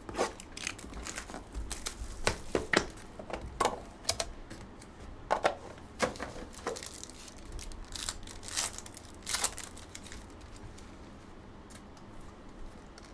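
Foil wrappers of Panini Court Kings basketball card packs crinkling and tearing, with irregular clicks and taps of boxes and cards being handled. The noise thins to quieter card handling for the last few seconds.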